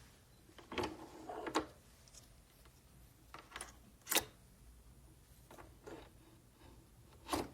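A handful of short clicks and knocks from something being handled: a cluster about a second in, single ones around three and a half, four, six and seven and a half seconds in, the loudest about four seconds in.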